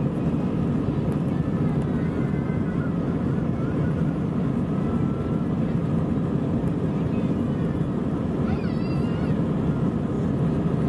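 Airbus A320 cabin noise while taxiing: a steady, even rumble of the jet engines at low taxi power and the airframe rolling over the taxiway, heard from inside the cabin.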